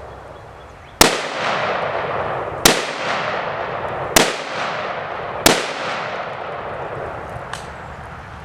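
Four 7.62×39 rifle shots about a second and a half apart, each followed by a long rolling echo, fired at a steel armor plate.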